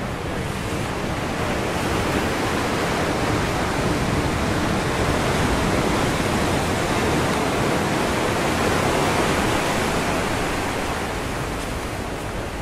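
Ocean surf washing onto a rocky shoreline: an even rush of water noise that swells gradually to a peak midway and eases off again toward the end as a wave comes in and draws back.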